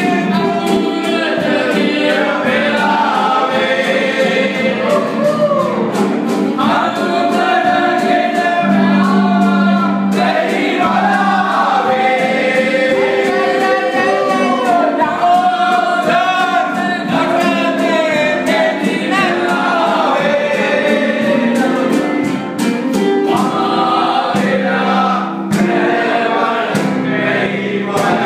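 A group of men singing a song together, accompanied by an acoustic guitar.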